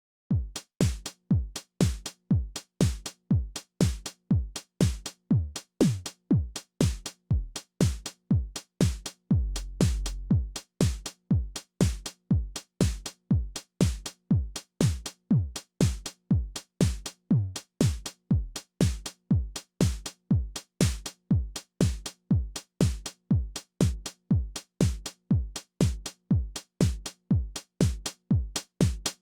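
Behringer RD-9 drum machine playing a steady, evenly paced beat of deep kick-drum thumps and bright percussive hits, starting suddenly out of silence. A longer, deeper bass boom sounds about ten seconds in.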